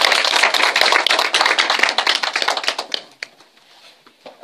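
Small audience applauding, with one person clapping close by; the applause dies away about three seconds in.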